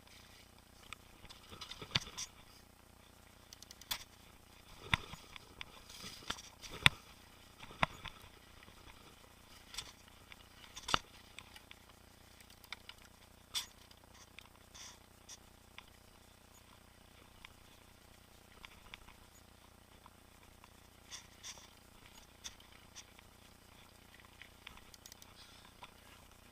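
Boardman mountain bike rattling and knocking as it is ridden over a rough trail: irregular sharp clicks and knocks, thickest in the first dozen seconds and again near the end.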